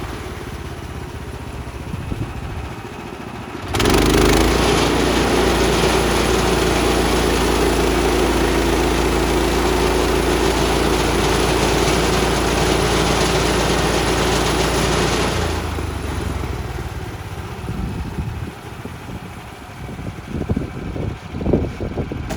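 The gasoline engine of a portable band sawmill is running. About four seconds in, it turns abruptly louder with a dense, steady cutting noise as the band blade saws through a cedar log, then drops back to a lower, steadier run after about twelve seconds. A few sharp knocks follow near the end.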